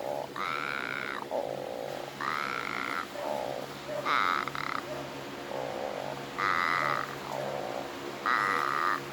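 Snoring in a steady rhythm, a higher rasping breath alternating with a lower one, one full breath about every two seconds.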